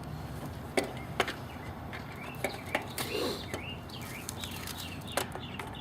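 Scattered light clicks and taps of hand work on an air conditioner's contactor wiring, over a steady low hum, with a few bird chirps near the middle.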